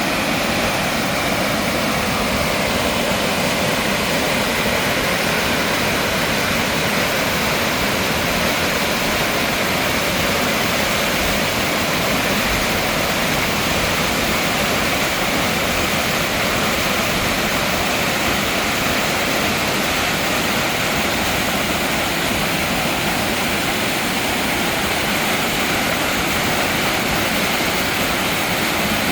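Mountain valley stream rushing steadily, a constant, unbroken sound of flowing water.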